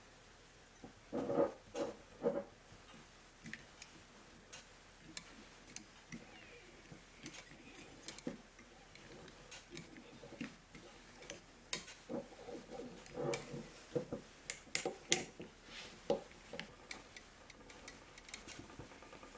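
Metal cutlery clinking, tapping and scraping against dishware in irregular bursts with pauses, as a cooked breakfast is eaten. The busiest clusters come about a second in and again around two-thirds of the way through.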